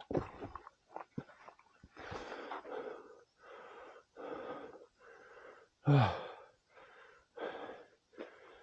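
A man breathing hard and fast, out of breath, with short in-and-out breaths about one and a half per second. About six seconds in comes one louder voiced exhale that falls in pitch, like a groan.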